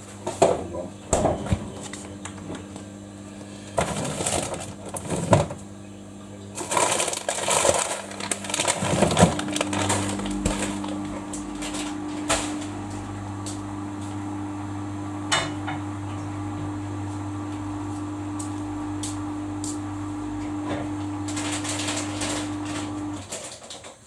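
Samsung washing machine on its 15-minute quick wash, the drum motor humming steadily while the load tumbles with irregular knocks and sloshing for the first several seconds. The motor hum changes pitch about ten seconds in and stops about a second before the end, as the drum pauses between turns.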